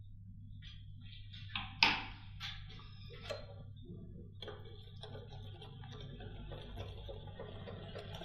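Wire whisk stirring thick melted chocolate in a glass bowl, its wires clicking and tapping against the glass. A few separate sharp taps in the first few seconds, then from about halfway steady stirring with quick ticks. A faint low hum runs underneath.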